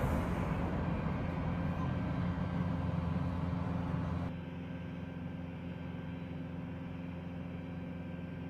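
M109A6 Paladin self-propelled howitzer's diesel engine idling, a steady low hum. The sound drops to a quieter level about four seconds in.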